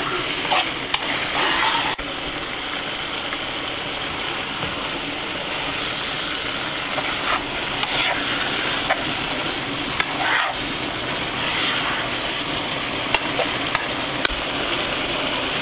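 Small fish frying with tomato and vegetables in a stainless steel pan: a steady sizzle while a spatula stirs and scrapes through the food, with occasional clicks of the spatula against the pan.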